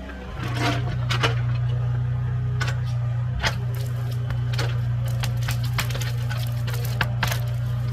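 An engine runs steadily under a string of sharp cracks and snaps of breaking wood.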